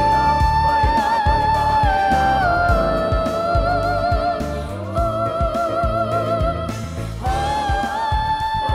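A boy singing long, high held notes with vibrato into a microphone over a pop backing track with a steady beat. The note steps down about two and a half seconds in, rises again about halfway, breaks briefly and returns higher near the end.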